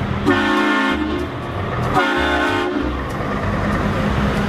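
Two blasts of a vehicle horn, each just under a second long and about two seconds apart, over a steady low hum.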